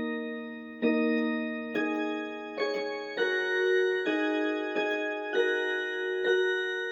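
Electronic keyboard with a piano voice playing a slow melody over held chords using only the black keys, which gives a pentatonic sound. A held chord fades at the start, then new notes are struck about once every second, each left to ring.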